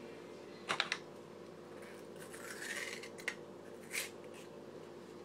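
Plastic honey bottle being opened by hand: a couple of sharp clicks from the cap, a short rising squeaky scrape about halfway through, and another click near the end.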